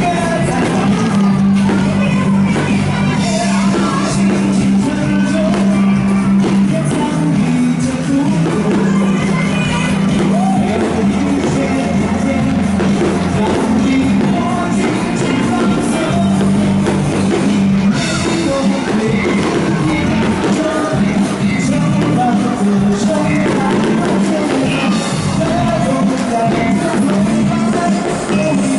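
Live band playing a pop-rock song with a singer, steady and loud throughout.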